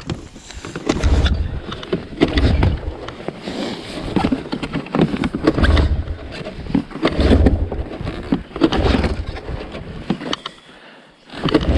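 Snowmobile riding over packed snow, heard from a camera mounted on the machine: engine noise and wind on the microphone come in repeated low rumbling surges every second or two, with knocks and rattles from the machine throughout. The noise drops away briefly near the end.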